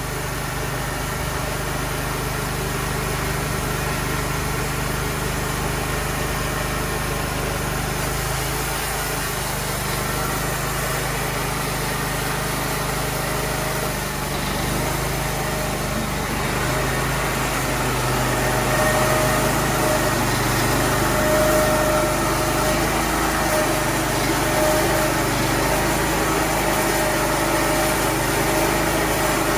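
A Cook's band sawmill engine running steadily. About halfway through, a higher steady whine joins in and the sound grows slightly louder.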